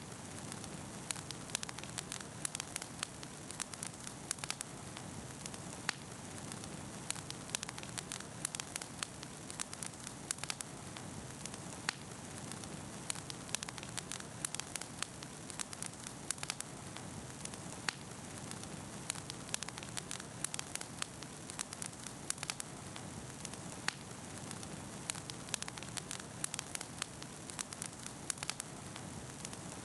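Campfire burning, with a steady hiss and frequent sharp crackles and pops, several a second.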